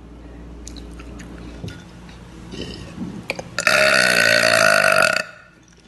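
A woman's long, loud burp about two-thirds of the way in, lasting about a second and a half at a fairly steady pitch. A few faint clicks come before it.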